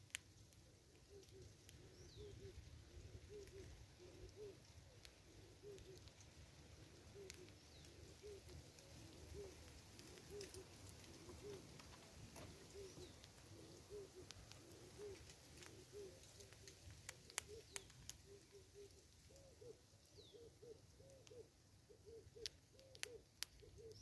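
Faint dove cooing: a steady run of soft, low coos at about two a second. Occasional thin high falling bird notes are heard, and a few sharp clicks come near the end.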